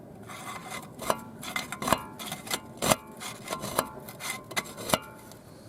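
Screwdriver scraping and knocking inside the cooling vents of an Audi A4's ventilated front brake disc, clearing out packed rust and dirt: irregular metallic clicks and scrapes, some leaving a short metallic ring.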